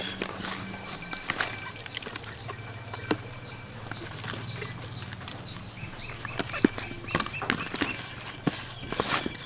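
Wet squelches, slaps and knocks of hands kneading and rubbing a raw whole chicken in marinade in a plastic basin. Behind it, birds chirp over and over in short falling calls, over a low steady hum.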